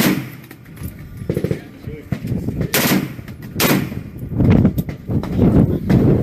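Gunfire: a loud shot at the start, two more about three and four seconds in, then a denser run of firing.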